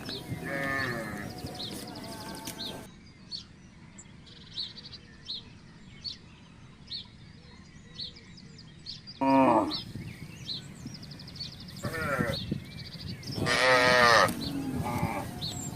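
Cattle calling several times: a falling, high-pitched call near the start, shorter calls about nine and twelve seconds in, and a longer, loud call near the end. Short high chirps repeat in the background throughout.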